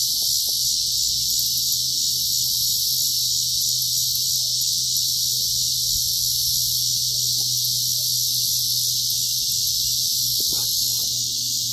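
A steady, high-pitched chorus of insects, with faint scattered clinks and rustles of a wire-mesh minnow trap being unclipped and handled.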